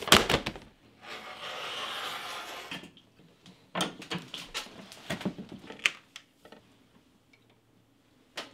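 Hand sounds of leatherwork: a roll of leather hide unrolled with a loud flapping rustle, then a rotary cutter drawn through the leather for about two seconds. After that comes a run of sharp clicks and knocks, and a single click near the end.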